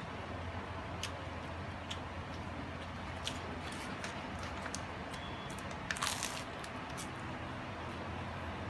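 Eating a crusty Vietnamese baguette (bánh mì): chewing with scattered crisp crunches of the crust and a louder crackle of bread and paper wrapper about six seconds in, over a steady low hum.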